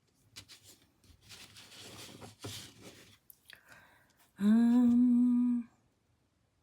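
A person hums one steady note for about a second near the end, after a few seconds of soft rustling and scraping.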